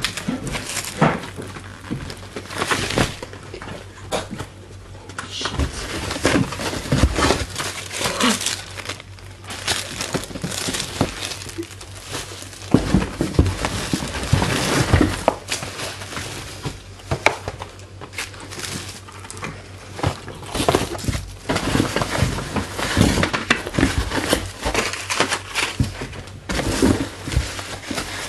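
Packaging crinkling and rustling, with irregular knocks and clatters as items are handled and set down.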